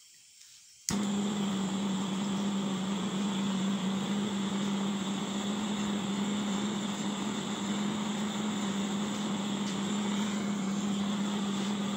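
A machine motor switched on about a second in, then running steadily with a strong low hum.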